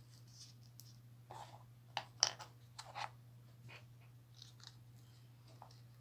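Small scissors snipping at a little heat-moulded craft piece, a scattered run of faint, irregular cuts, the clearest about two to three seconds in.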